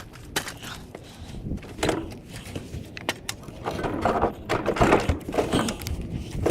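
Irregular clunks, scrapes and rattles of an empty refrigerator being wrestled on a hand truck toward a pickup tailgate, busiest about four to six seconds in.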